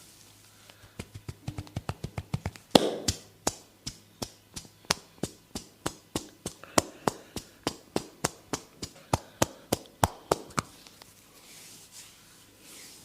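Hands tapping rhythmically on a person's head during a head massage, about three quick taps a second, with one louder slap about three seconds in. The tapping stops a couple of seconds before the end.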